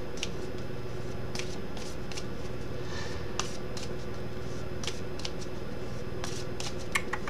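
Scattered light clicks and taps of a computer keyboard and mouse, spaced a second or more apart with a few close together near the end, over a steady low electrical hum.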